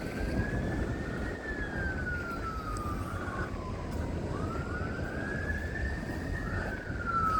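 Emergency vehicle siren in a slow wail, rising over about a second and then falling away over about three seconds, twice.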